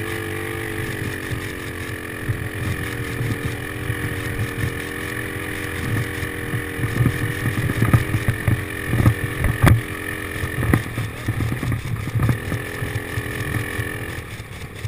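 An engine running steadily, its hum cutting out near the end, with a cluster of sharp clicks and knocks about halfway through.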